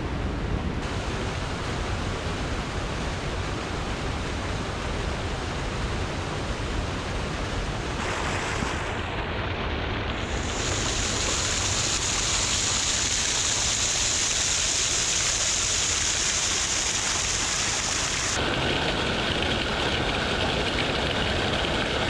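Seasonal waterfall cascading over mossy boulders, running high with snowmelt and rain: a steady rush of falling, splashing water. It grows louder and brighter about ten seconds in, heard up close.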